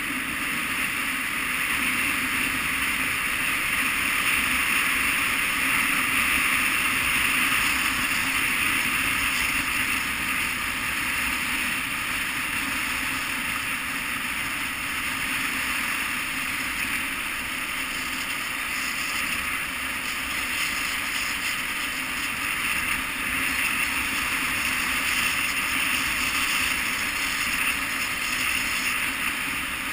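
KTM 990 Adventure's V-twin engine running at a steady cruise, mixed with steady wind noise.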